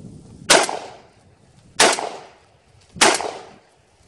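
Three shots from a Browning A-5 Light Twelve, a recoil-operated 12-gauge semi-automatic shotgun, fired about a second and a quarter apart. Each blast is sharp and trails off in a short echo.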